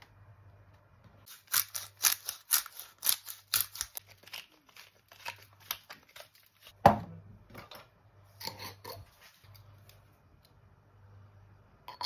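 Hand-twisted spice grinder grinding in quick crunching strokes, about four or five a second. One loud knock comes about seven seconds in, followed by another short burst of grinding.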